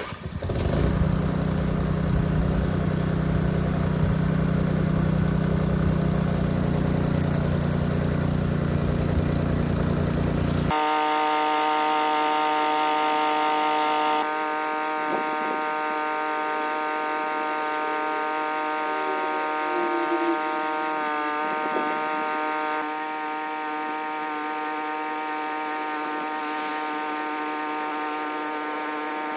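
Pressure-washing equipment running: a steady engine drone starts suddenly. About eleven seconds in it changes abruptly to a thinner, steady buzzing whine of several even tones, with no deep rumble under it.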